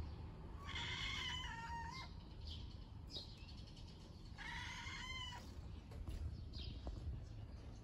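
A cat meowing at a bird or insect it is watching: two drawn-out, wavering meows, one about a second in and another about four and a half seconds in, with faint short high chirps in between.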